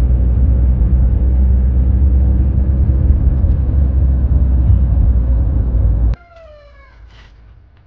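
Car driving slowly: a loud, steady low rumble of engine, tyres and wind. It cuts off suddenly about six seconds in, leaving a short falling call and a few faint clicks.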